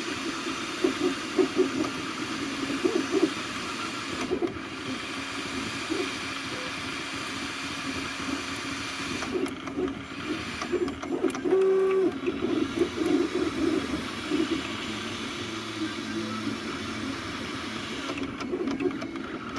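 3D printer's stepper motors whirring as the print head moves, the pitch jumping to a new note with each short move.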